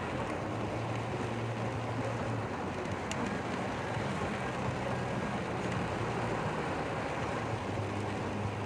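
Heavy rain falling steadily, an even hiss over the low hum of a car's engine.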